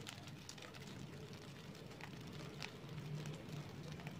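Fingers rubbing lumps of flour through a fine metal mesh sieve, giving soft scratching and scattered light ticks as crumbs fall into a dry pan. A low steady hum runs underneath.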